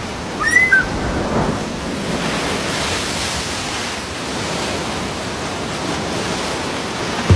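Steady rushing outdoor noise, with a brief high bird chirp about half a second in.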